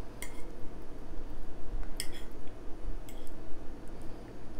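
A metal fork clinking against a plate while cutting into a serving of lasagna: a few light, short clinks, two of them about two seconds apart, over a steady low hum.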